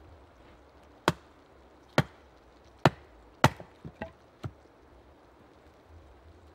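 Axe splitting a log round on a stump chopping block. Four sharp chops land about a second apart, followed by a few lighter knocks.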